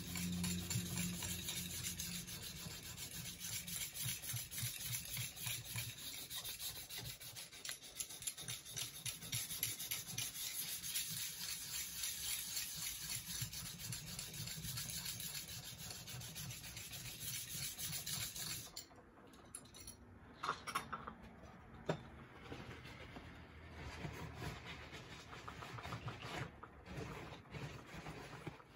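Abrasive sanding block worked by hand over the rusty steel face of a small anvil, fast back-and-forth scraping strokes. The strokes stop about two-thirds of the way through. Softer rubbing and a few light clicks follow as the face is wiped with a paper towel.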